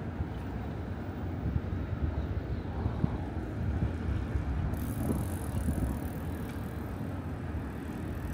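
City street ambience: a steady low rumble of road traffic, with a higher hiss coming in a little over halfway through.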